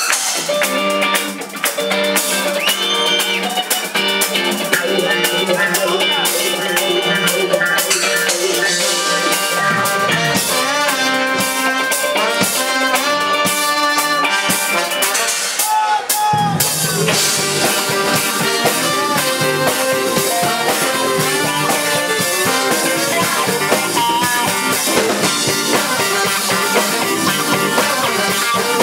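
A rock band playing, with a drum kit and electric guitar. A bit over halfway through there is a short break, and the band comes back in fuller, with more bass.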